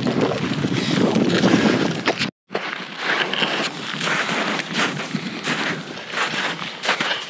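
Wind buffeting the microphone for about two seconds, then, after a brief cut, footsteps in snow at a steady walking pace of about two steps a second, with wind in the background.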